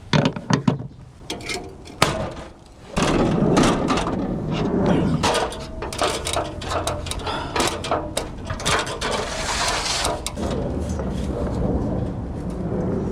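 Scattered knocks, clicks and scuffs of someone climbing up onto a roof and moving about on it. About three seconds in, a steady rushing noise starts under the clicks and runs on.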